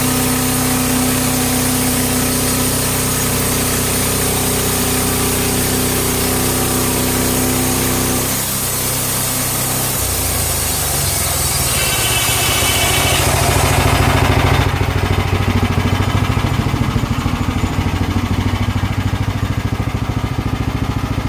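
Portable bandsaw sawmill's gas engine running steadily while the band blade saws a cherry log into slabs. The engine note shifts about eight to ten seconds in, and a high hiss drops away about fifteen seconds in.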